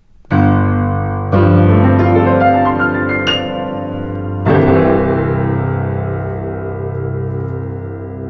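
Piano playing slow, sustained chords: one chord about a quarter second in, another about a second later with a few higher notes over it, and a new chord about four and a half seconds in, each left ringing.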